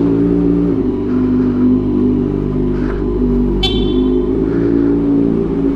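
Kawasaki ZX6R 636's inline-four running at steady low revs through a decat link pipe and SC Project exhaust, with the revs dipping slightly under a second in. A brief high chirp about two-thirds of the way through.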